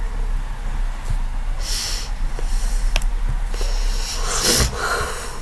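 Two short, heavy breaths from a person, about two seconds in and again near the end, over a steady low hum.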